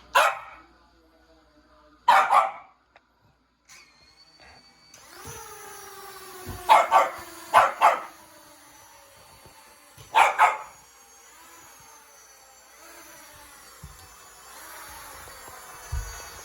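A dog barking, about five single sharp barks with pauses between them. From about five seconds in, a small drone's motors run underneath with a steady whine.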